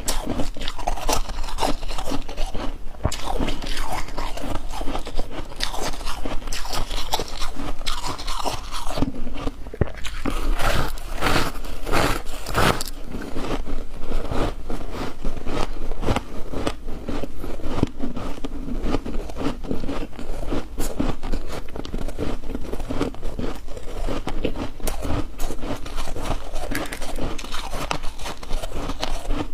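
Close-up biting and chewing of ice chunks: dense, irregular crunching and crackling that continues without a break.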